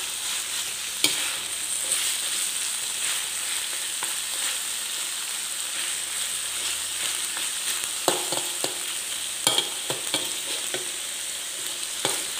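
Chicken pieces in red curry paste sizzling steadily in hot oil in a wok while being stir-fried with a metal spatula, which scrapes and knocks sharply against the wok a few times, mostly in the second half.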